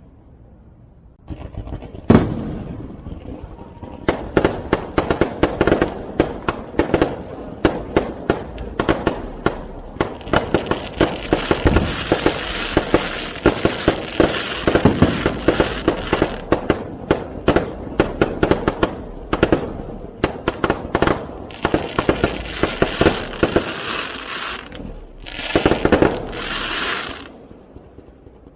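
Aerial fireworks going off: a single bang, then a fast, dense barrage of sharp reports, several a second for about twenty seconds, ending in two longer crackling bursts near the end.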